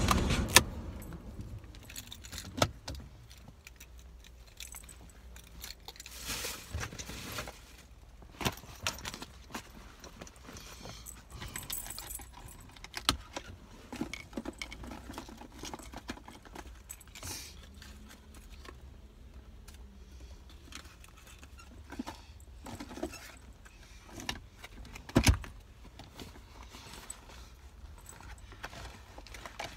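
Rustling, light jangling and scattered clicks of things being handled in a car cabin, with one sharper, louder click about 25 seconds in.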